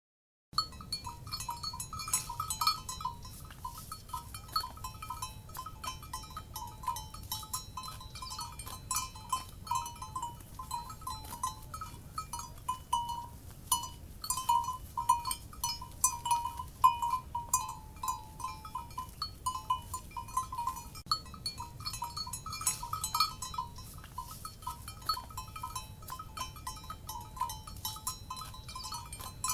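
Cowbells on grazing livestock clanking irregularly and continuously, their ringing tone sitting close to 1 kHz, over a low steady rumble. The sound begins abruptly about half a second in, out of silence.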